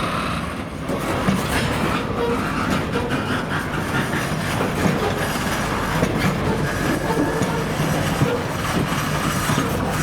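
Freight train rolling past at close range, its wheels clattering steadily over the track joints and the diamond crossing.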